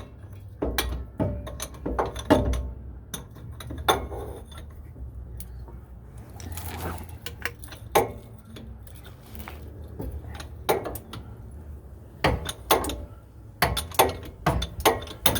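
Irregular metallic clinks and knocks of hand tools, a socket, ratchet and leverage pipe, working a truck's hub-assembly bolts loose.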